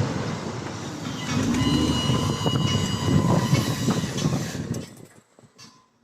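Heavy bulldozer working: a loud rumble with rhythmic clatter and a thin high squeal. It drops away about five seconds in.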